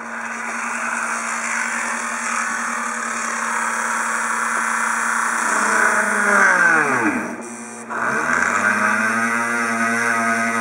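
Hand-held rotary tool (Dremel-type micro grinder) running at low speed while drilling a 2.5 mm pilot hole in an aluminium heatsink for a 3 mm tap. It is a steady motor whine. About seven seconds in, its pitch falls sharply and the sound briefly dips, then it picks up and runs on.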